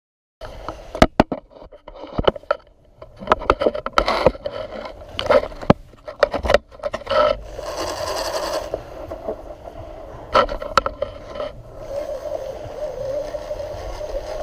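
Close handling noise from a heavy fishing rod and reel during a fight with a big shark: many sharp clicks and knocks with scraping, over a steady hum that grows plainer from about halfway.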